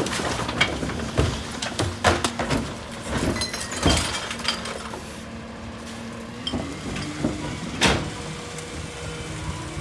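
Rear-loader garbage truck dumping wheeled trash carts with its rear cart lifters: a quick run of bangs and clatters as the carts knock against the hopper and are set back down, and one more loud bang about eight seconds in. The truck's engine and hydraulics hum steadily underneath.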